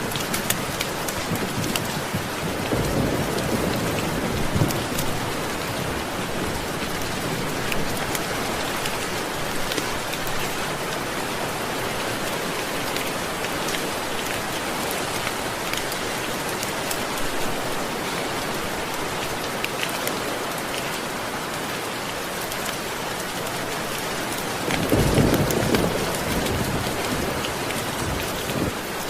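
Steady heavy rain hissing, with thunder: a low rumble a few seconds in and a louder, longer rumble near the end.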